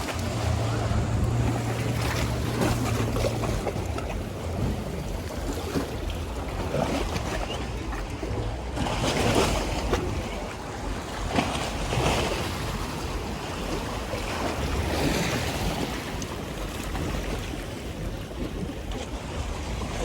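Ocean waves surging and washing onto the shore, swelling louder several times, with wind buffeting the microphone.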